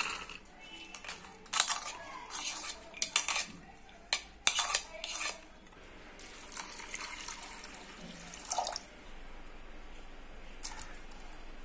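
Dry toor dal pouring into an aluminium pressure cooker, a run of sharp clicks and rattles as the lentils hit the metal. About six seconds in, water is poured into the cooker for around three seconds.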